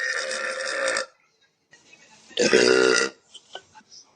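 A woman burping twice. The tail of one long belch stops about a second in, then a second loud belch of about half a second comes midway.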